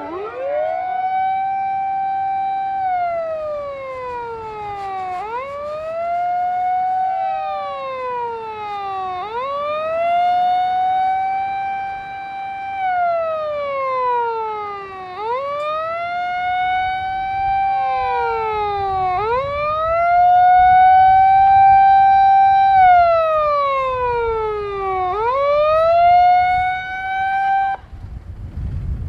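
Japanese fire engine's siren wailing over and over: each cycle rises quickly, holds, then falls slowly, and a second siren overlaps it in places. Engine rumble swells underneath about two-thirds of the way through as the vehicle comes close. The siren cuts off shortly before the end.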